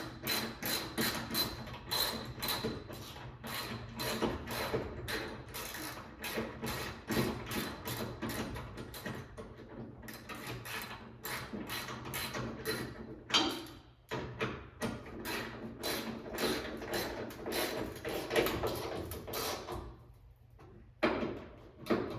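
Hand ratchet clicking in quick repeated strokes as the trunk lid's hinge bolts are tightened, pausing briefly a few times.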